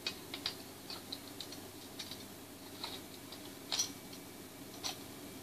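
Small, irregular clicks and taps from katana fittings, the tsuba guard and the pieces around it, knocking against each other and the bare tang as they are handled; the loudest clicks come a little before four seconds in.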